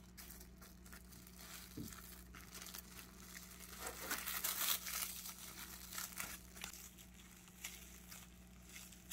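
Plastic cling wrap crinkling faintly as it is wrapped and pressed around a rolled sandwich, with the rustling busiest about four seconds in.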